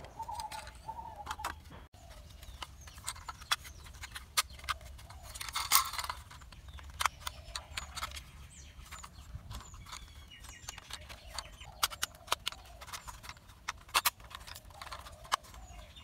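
Plastic parts of a toy auto-rickshaw clicking and rattling as they are handled and snapped together: many sharp, irregular clicks, with a louder burst about six seconds in.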